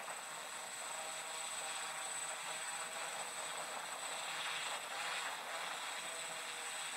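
Steady hiss of noise with no clear source, swelling slightly about four and a half seconds in.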